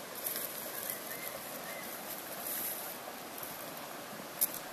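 Shallow mountain stream running over rocks, a steady rushing of water. A single sharp click near the end.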